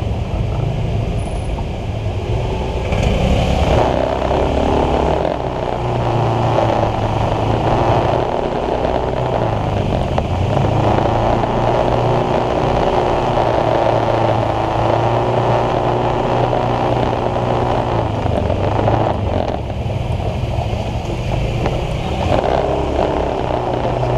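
Small motor scooter engine running as it rides along at low speed, its pitch rising and falling gently with the throttle.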